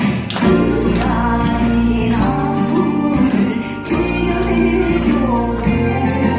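Korean folk song (minyo) performance: music with a steady beat of about two strikes a second under a bending sung melody.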